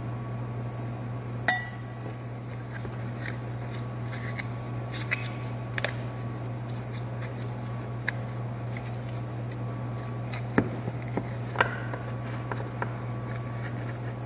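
Scattered clinks and taps of kitchen utensils and dishes on a tabletop while sambusa is being filled and the dough worked. The loudest is a sharp clink with a short ring about a second and a half in. A steady low hum runs underneath.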